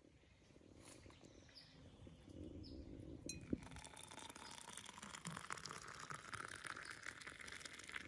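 Hot water poured from a small metal camping kettle into a ceramic mug of instant coffee powder: a small clink about three and a half seconds in, then a steady stream of water running into the mug.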